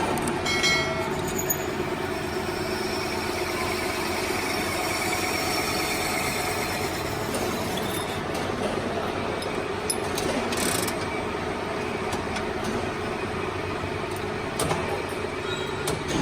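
Steady industrial machine noise: a continuous mechanical drone with a few faint steady tones, scattered clicks, and a short hiss about ten seconds in.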